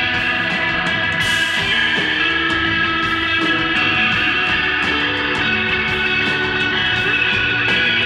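Live instrumental desert rock band playing: electric guitar holding long sustained notes over bass and drums, with regular cymbal hits.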